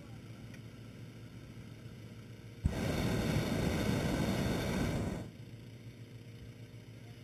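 A hot-air balloon's propane burner fires one blast of about two and a half seconds while heating the envelope during inflation. The blast starts suddenly with a click and cuts off sharply. Under it runs the steady drone of the inflator fan's engine.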